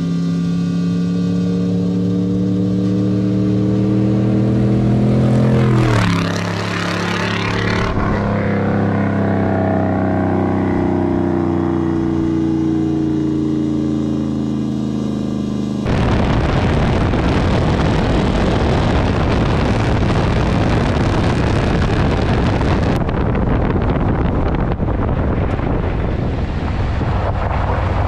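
1995 Ford F-350's 460 big-block V8 driving past. Its engine note climbs as it accelerates in, drops in pitch as it passes about six seconds in, then rises again as it pulls away. About sixteen seconds in, it cuts to steady wind and gravel-road noise from a camera on the truck's side, with the engine low underneath.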